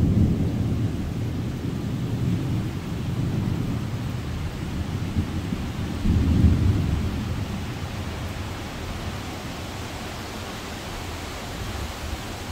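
Thunderstorm wind and rain: low gusting rumbles that are strongest at the start and swell again about six seconds in, over a steady hiss of rain.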